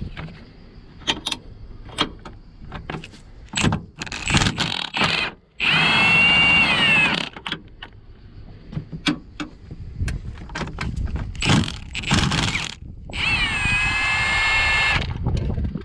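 Cordless power driver with a long socket extension spinning engine bolts, in two runs of about two seconds each, its motor whine dipping as it takes the load and then holding steady. Sharp metallic clicks and knocks of the socket and tools come in between.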